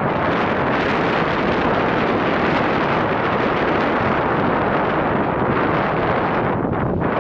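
Wind blowing over the microphone: a steady, loud rushing that thins briefly near the end.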